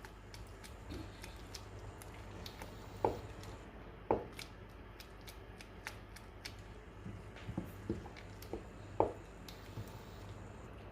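A cooking utensil knocking and clicking against a pan while lentil curry is stirred. The light knocks are scattered, with three sharper ones about three, four and nine seconds in.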